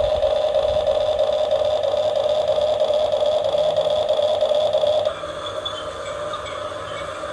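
Steady whine of a radio-controlled model's small electric motor running; about five seconds in it drops suddenly to a quieter whine.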